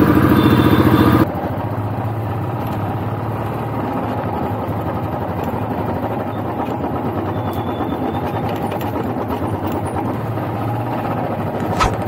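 Royal Enfield Classic 350's single-cylinder engine running under way, with an even pulsing beat. About a second in the sound drops suddenly to a lower level and then runs on steadily. A brief knock comes near the end.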